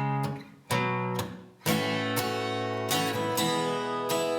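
Acoustic guitar strumming chords: two short chords that are cut off abruptly, then steady strumming from about a second and a half in.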